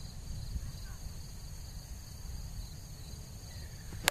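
Steady high trilling of crickets, with wind rumbling on the microphone. Near the end, a single sharp crack of a plastic wiffle bat hitting a wiffle ball.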